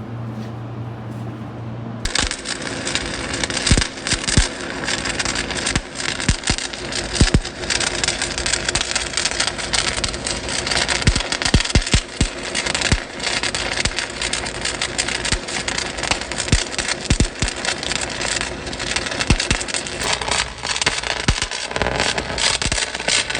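A low steady hum that gives way about two seconds in to a crawler dozer's engine running, with many sharp metallic clanks and knocks throughout.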